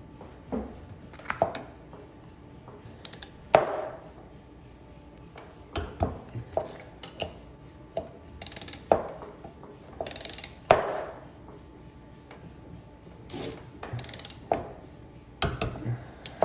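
Ratchet wrench clicking in several short runs while engine fasteners are tightened during a bottom-end rebuild, with metal parts clinking in between.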